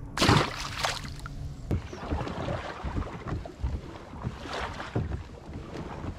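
Wind buffeting the microphone on a kayak, with scattered knocks and rustles from gear being handled on the hull. A loud, sudden burst comes about a quarter second in.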